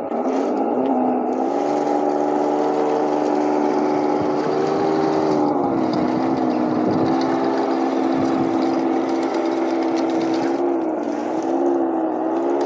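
Heng Long RC King Tiger tank's multi-function unit playing a simulated tank engine sound through its speaker as the model drives, the engine pitch dipping and climbing again a few times with the throttle.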